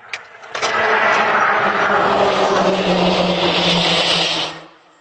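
A vehicle driving off fast: a steady engine drone under a loud rushing noise whose hiss rises in pitch, stopping abruptly near the end.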